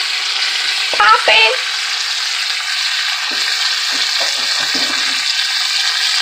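T-bone steaks sizzling steadily as they fry in hot melted butter in a large pan.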